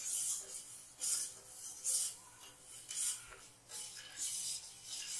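Steel spoon stirring sugar and water in a stainless steel pot, scraping undissolved sugar granules across the bottom in gritty strokes about once a second.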